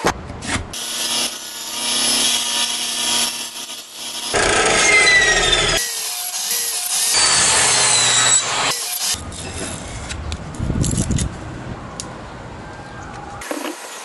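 Benchtop table saw cutting small wooden pieces in several short, separate passes, its motor running with a steady hum under the noise of the blade in the wood.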